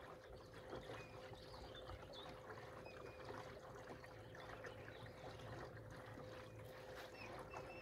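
Torqeedo Travel 1103 electric outboard running at a steady cruise, a faint even whine, with water trickling along the canoe's hull.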